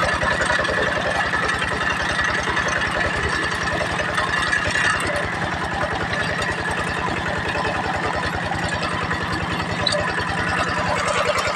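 Kubota diesel engine of a tractor running steadily, an even, rapid chugging with no change in pace.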